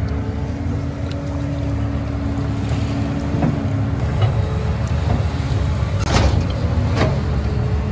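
A steady low drone like a small engine running, with wet squelches and slaps of hands digging in mud, the sharpest about six and seven seconds in.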